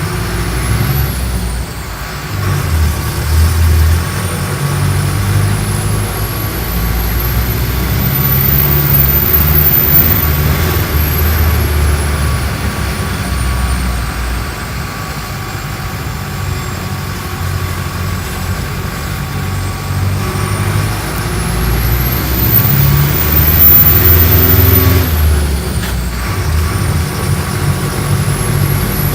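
Mercedes-Benz OF-1417 bus's diesel engine running under way, its note swelling and easing, with a thin high whine that climbs slowly and falls back twice. The engine sound drops briefly about two seconds in and again near the end.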